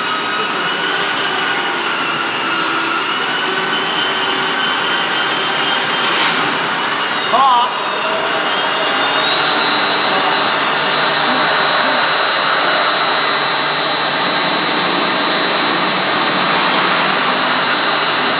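CNC router running with its spindle cutting, a steady machine noise with high whining tones. A brief louder burst comes about seven seconds in, and soon after a whine rises and then holds at a high steady pitch.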